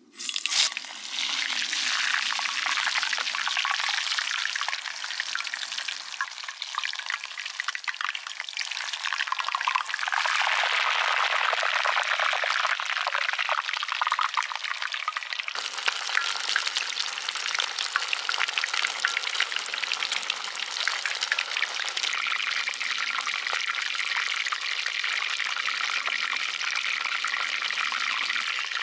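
A whole chicken deep-frying in hot oil in a cast-iron pot: a dense, steady sizzle with fine crackling that starts suddenly as the chicken goes into the oil.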